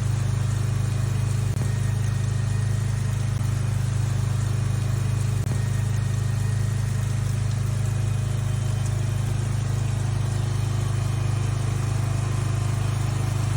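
Steady low engine drone that holds even and unchanging throughout.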